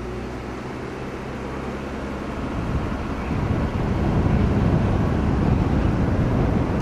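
Car driving: a steady low engine hum with road noise, turning into a louder, rougher rumble about three seconds in.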